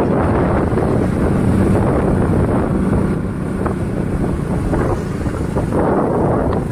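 Wind rushing over a phone's microphone on a moving motorcycle, with the bike's engine running steadily underneath.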